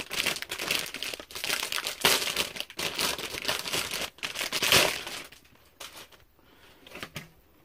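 Motherboard packaging crinkling and rustling as the board is lifted out of its box. It runs for about five seconds, then gives way to a few light clicks.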